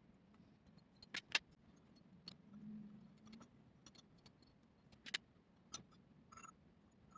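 Near silence broken by about eight small, sharp clicks and taps from handling watch parts and tools, the loudest pair about a second in. A brief faint low hum comes in around the middle.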